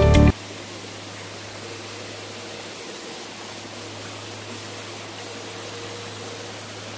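Background music cuts off just after the start, leaving the steady rush of shallow creek water with a low, steady hum under it.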